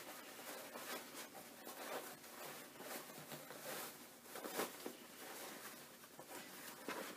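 Faint, irregular rustling and scraping of fabric as hands turn a sewn bag with a heavyweight denim lining right side out through its gap.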